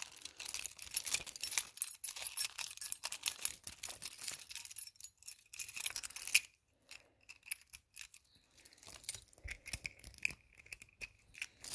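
Keys jingling and clinking against each other as one key is worked off a metal key ring, followed by a few scattered small metallic clicks.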